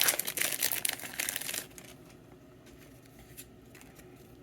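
Foil Pokémon card booster pack crinkling as it is torn open, for about the first second and a half; after that only faint handling ticks.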